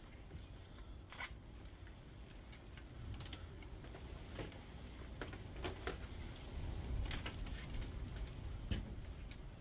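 Irregular sharp clicks and rustling, about ten clicks spread unevenly, from snips and hands working copper wire free of an induction hob's coil.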